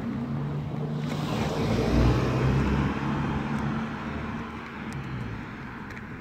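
A motor vehicle passing on the street: engine hum and tyre noise swell to a peak about two seconds in, then fade away.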